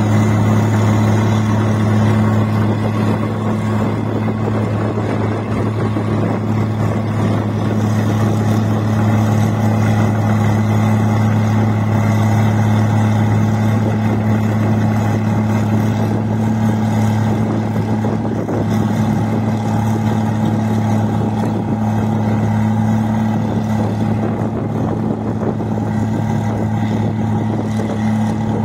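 Combine harvester running steadily while harvesting rice: a constant, even engine drone with the noise of its working machinery.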